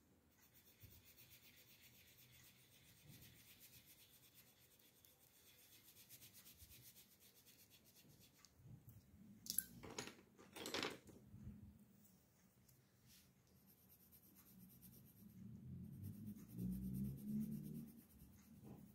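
Faint scratching and rubbing of coloured pencil shading on paper, with two sharp clicks around ten seconds in.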